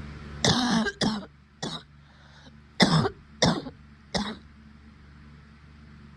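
A woman coughing from COVID-19: six hard coughs in two fits of three, about a second and a half apart.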